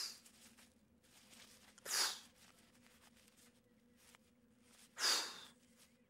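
Three short puffs of breath blown upward, at the start, about two seconds in and about five seconds in, keeping a feather aloft, with faint room tone between them.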